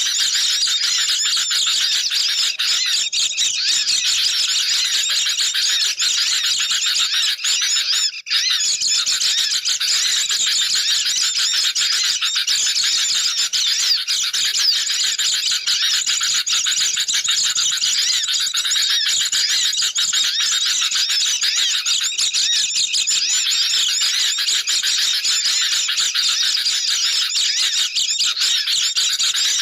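Bird-lure recording of many sooty-headed bulbuls (kutilang) and white-eyes (pleci) calling at once in a dense, agitated chatter of high chirps and warbles, with a brief break about eight seconds in. A noisy chorus like this is played to draw these birds in.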